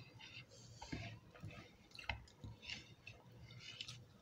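Faint, wet eating sounds as khichuri is eaten by hand: soft squishes of fingers mixing rice on plates, with chewing and lip smacks coming irregularly.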